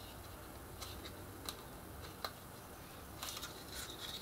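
Faint handling of lightweight chipboard and paper: a few soft isolated clicks, then a short crackle about three seconds in, as a curved chipboard strip with adhesive backing is pressed around a cone and its backing peeled away.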